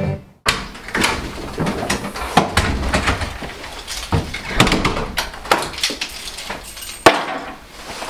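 Wooden front door being opened and shut, with footsteps and handling knocks in a small hallway; a sharp latch click about seven seconds in.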